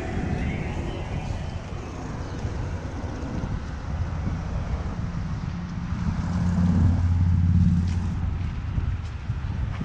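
Motor traffic rumbling past, with wind on the microphone. A vehicle engine's steady low hum grows louder from about six to eight seconds in as it passes.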